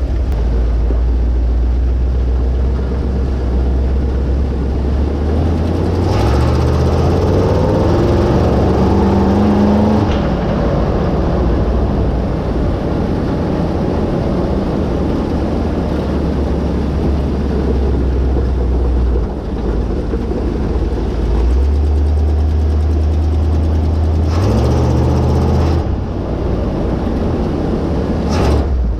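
1976 Dodge Power Wagon's 360 Mopar V8 with headers, running as the truck drives. It rises in pitch under acceleration about six seconds in and again near the end.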